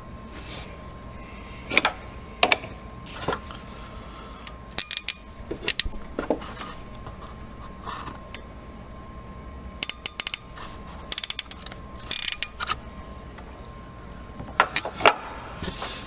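Ratcheting crimping pliers clicking as they close on a wire terminal: several short runs of sharp, quick ratchet clicks with pauses between them.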